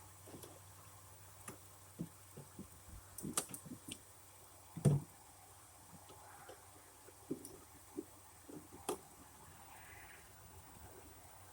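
Scattered light clicks and knocks of parts and tools being handled, with one louder thump about five seconds in.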